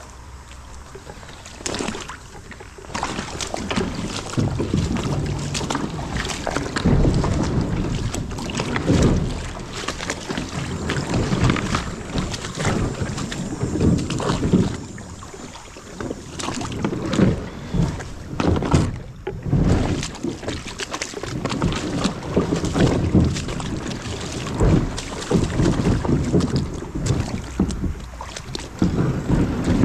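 Kayak being paddled through shallow water: irregular splashes and knocks from paddle strokes keep coming.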